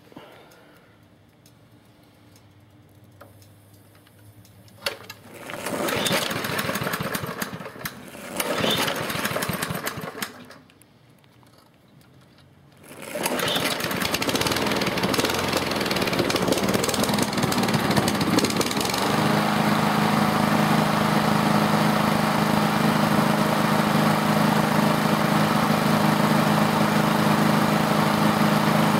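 Propane-fuelled lawn mower engine starting without re-adjustment of its fuel settings. Two short bursts of a couple of seconds each die out, then about thirteen seconds in it catches and keeps running, settling into a steady, even running note some six seconds later.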